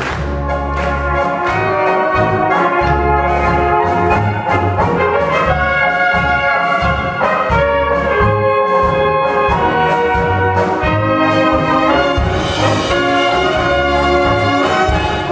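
Brass band playing a polka: trumpets and trombones carry the melody over a tuba bass that alternates steadily on the beat, with drums keeping time.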